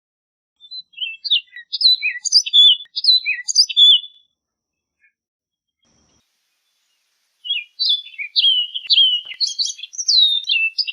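Orchard oriole singing: two rapid, jumbled phrases of varied whistled notes, sliding up and down, separated by about three seconds of silence.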